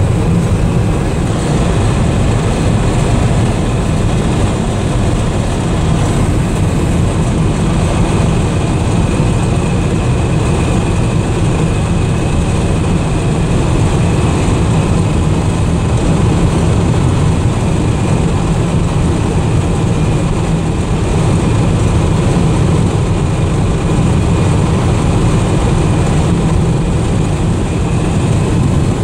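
Steady low drone inside the cab of a 1979 Dodge D300 pickup cruising at speed: wind and road noise over its 360 V8, whose engine note is hardly heard at this speed.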